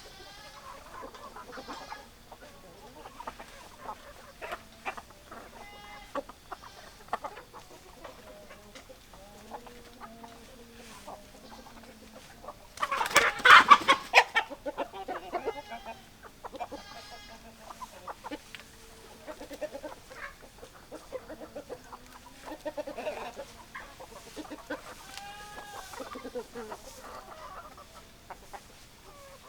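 Domestic chickens clucking in short, scattered calls. About halfway through comes one much louder call lasting about a second and a half.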